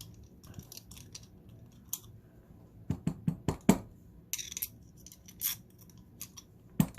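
Screw being backed out of a solid steel padlock body with a Phillips screwdriver: small metal clicks and scrapes, with a cluster of sharper clicks about three seconds in and a short scrape just after.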